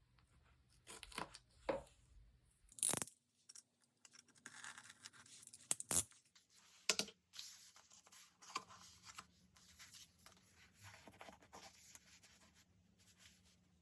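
Paper being handled and torn in short strips, with rustling and a few sharp taps, as in diary decorating with paper and tape.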